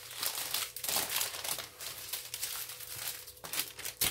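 Plastic packaging crinkling and rustling as hands handle a clear plastic bag of small bagged diamond painting drills. A single sharp tap comes near the end.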